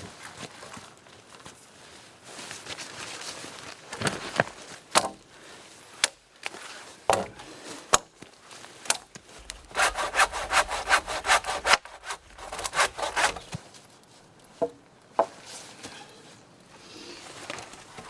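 Hand saw cutting wood in quick back-and-forth strokes, in bursts with pauses, mixed with a few sharp knocks of wood.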